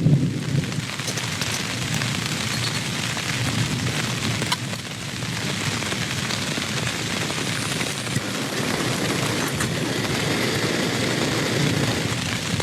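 Steady heavy rain, with the low rumble of thunder dying away in the first moment and a few sharper drips now and then.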